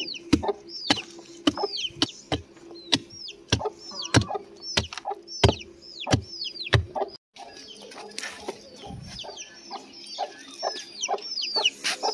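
A short-handled hand hoe chopping into packed soil and brick rubble, about two strikes a second, until the sound cuts off abruptly about seven seconds in. Throughout, chicks peep repeatedly in short falling notes.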